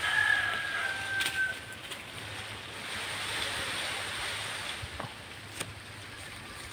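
Foliage of a mango tree rustling as a climber moves through its branches. A single thin, slightly falling bird whistle sounds over the first second and a half, and there are a couple of faint knocks near the end.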